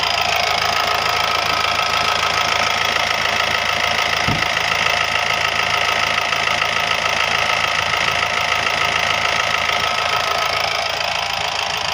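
Honda Amaze's 1.5-litre common-rail diesel engine idling steadily, just started after its fuel system has been bled following the refitting of the injectors and high-pressure pump.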